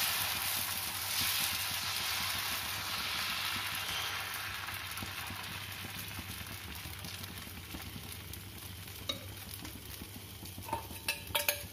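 Dosa batter sizzling on a hot iron tawa as it is ladled on and spread out in circles with the ladle, the hiss slowly fading. A few light clicks near the end.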